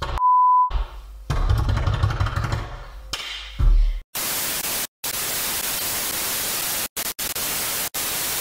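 A short steady beep tone, then a burst of rumbling, crackling distortion, then television static hiss broken by several brief dropouts: an edited-in TV-glitch sound effect.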